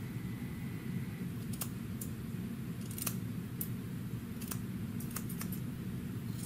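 Freshly sharpened Anvil grooming shears snipping faux fur in a test cut: about ten irregular, sharp snips of the blades closing, over a steady low hum.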